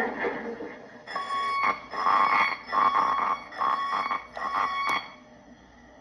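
Electronic beeping sound effect from a flux capacitor replica's small built-in speaker: a fading rush of noise, then about six uneven, pitched beeps mixed with sharp clicks, ending about a second before the end.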